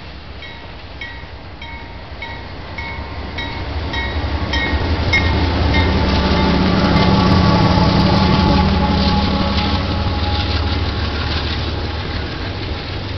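A double-stack container freight train passing at speed, led by two diesel locomotives (BNSF and Kansas City Southern): the engine rumble builds, peaks as the locomotives go by about six to nine seconds in, then eases into the rolling noise of the container cars. A bell rings about twice a second during the first five seconds of the approach.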